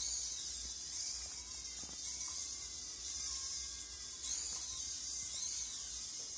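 Small robot rover's DC gear motors running, a steady high-pitched whine with two short rise-and-fall sweeps in pitch about four and five seconds in as the wheel speeds change for steering.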